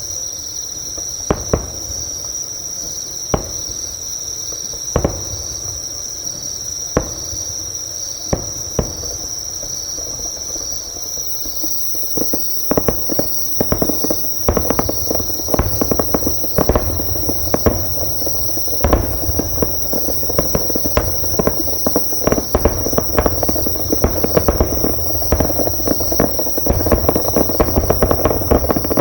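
Distant fireworks going off, a few single bangs at first, then from about twelve seconds in a rapid, dense barrage of bursts. Nearby insects chirp steadily and high-pitched throughout.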